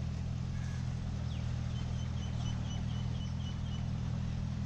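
A steady low engine hum, with a bird giving a quick run of about nine short high chirps in the middle.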